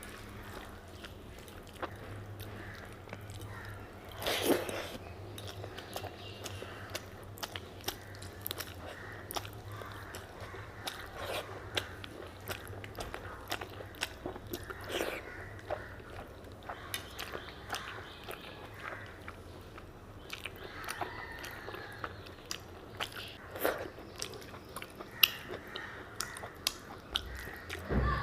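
Close-miked chewing and biting of a meal of mutton curry and rice: a steady stream of small wet mouth clicks, with a few louder bites and chews along the way.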